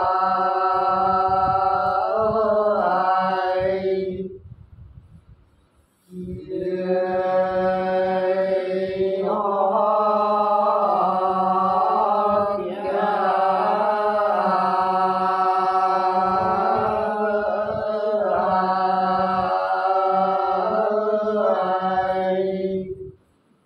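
Unaccompanied soọng cô, San Diu folk singing, chanted by several men in long held notes on a steady low pitch. They break off about four seconds in, resume two seconds later, and stop just before the end.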